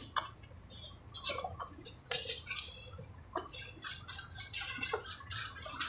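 Plastic squeeze bottle of red sauce squirting and sputtering into small plastic sauce cups in short, irregular squirts.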